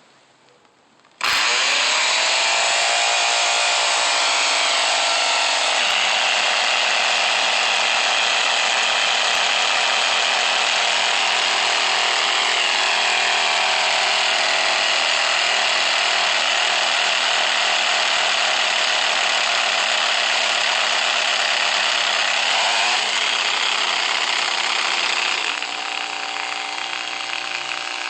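Ryobi angle grinder, wheel removed, switched on about a second in and running flat out with a steady high motor whine. The motor has been making a funny noise and overheating, and is left running to burn itself out. Near the end the sound gets quieter and its tone changes.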